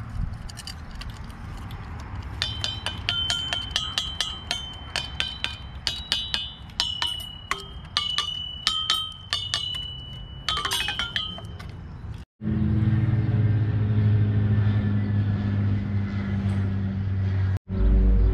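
Painted metal bars of an outdoor chime instrument struck one after another with a wooden stick, giving quick bright ringing notes. The strikes come thickest from about two to eleven seconds in. After a short break near twelve seconds, background music with sustained low notes takes over.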